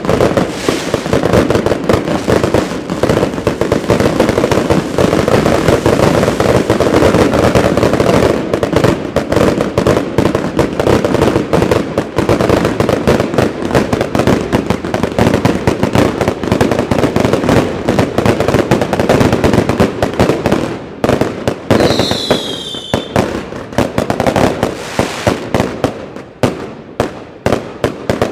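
Fireworks going off in quick succession: a dense, loud run of bangs and crackles, with a short falling whistle from a whistling firework about 22 seconds in. The bangs thin out into separate reports near the end.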